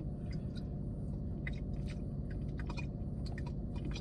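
Irregular small clicks and crackles of plastic squeeze bottles being handled and squeezed as lemon juice is squirted from a lime-shaped squeeze bottle into a plastic drink bottle, over a steady low hum.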